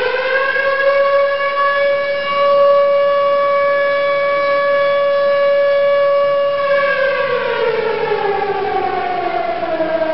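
Tornado warning siren wailing: its pitch finishes climbing in the first second, holds steady, then falls away in a long downward glide from about seven seconds in.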